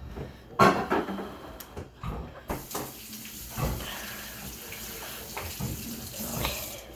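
Water running from a tap into a sink, starting about two and a half seconds in and stopping near the end, after a few knocks and clatters.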